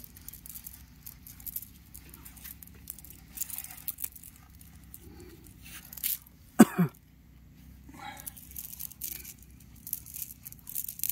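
Cast net rustling and dragging as it is gathered and arranged by hand, with a man's loud double cough about two-thirds of the way through.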